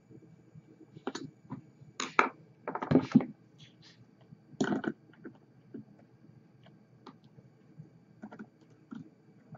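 Small metal hand tools clicking and scraping on a rebuildable atomizer's deck and post screws while a coil is set in place: scattered light clicks and short rustles, the loudest cluster about three seconds in and another near five seconds.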